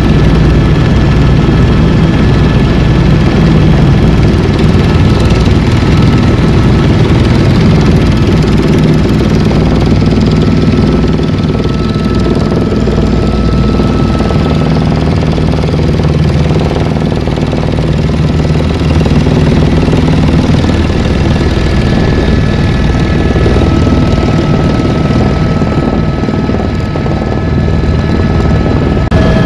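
Helicopter rotor and turbine engine noise heard from inside the cabin: a loud, steady low rumble with a few thin, steady whines above it.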